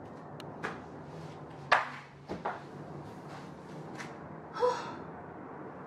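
A few sharp knocks and clicks from painting tools being handled and set down, the loudest about two seconds in, over a steady low hum. Near the end comes a short grunt as a person gets up from the floor.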